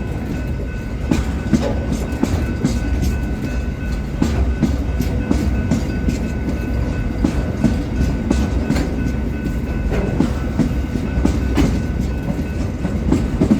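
Long freight train of steel-coil wagons and hoppers rolling slowly past at about 15 km/h: a steady low rumble with irregular clicks and clunks from the wheels on the rails.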